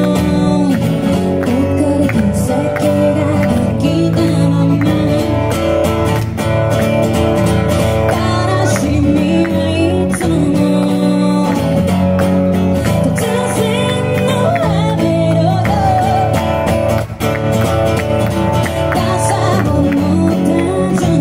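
A woman singing a slow pop song live into a microphone while strumming an acoustic guitar.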